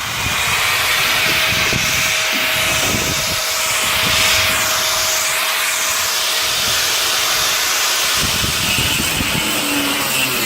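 A power tool running continuously, with a steady thin whine over a loud hiss; the whine drops out near the end while a low rattling grows.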